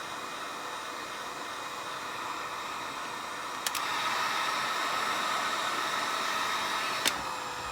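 Electric heat gun blowing steadily. A click about three and a half seconds in is followed by a louder blow with a higher whine. Another click near the end, and it drops back.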